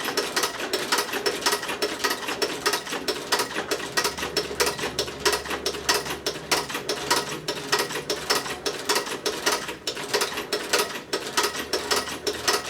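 Heavy-duty sewing machine stitching a zipper into a leather jacket: a steady, even run of needle strokes at about five a second.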